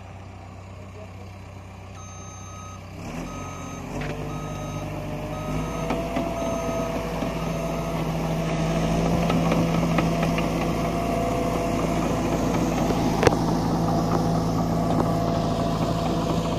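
Caterpillar D5K LGP crawler dozer's diesel engine running under load, growing louder and settling into a steady drone about seven seconds in. About two seconds in, a backup alarm beeps about twice a second for some five seconds, then stops.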